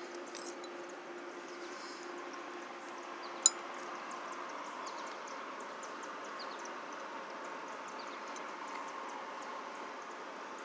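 A single sharp metallic clink about three and a half seconds in, as pliers handle the freshly welded stainless steel plate, over a faint steady outdoor background with scattered faint high ticks.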